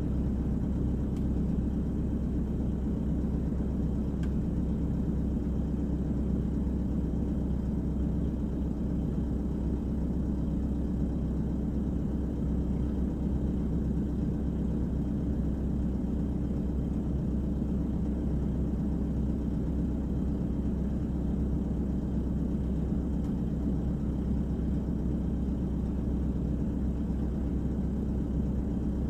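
Volvo EWR150E wheeled excavator's diesel engine running under work, heard from inside the cab as a steady low drone.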